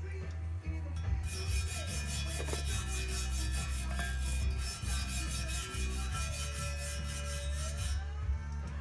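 Hand scrubbing of old silicone sealant off the aluminium mating surface of a Sea-Doo 951 crankcase half, in rapid, even back-and-forth strokes that start about a second in and stop near the end.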